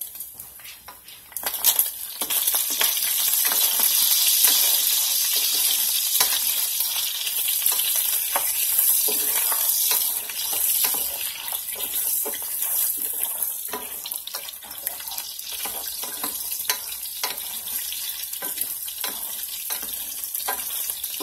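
Sliced pork sizzling in coconut oil and its own juices in a stainless steel sauté pan as it browns, getting louder about a second and a half in. A spatula stirs it, scraping and tapping against the pan.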